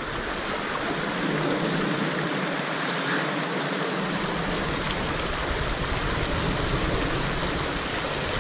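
Shallow river riffle rushing steadily over rocks and cobbles. A low rumble joins underneath about four seconds in.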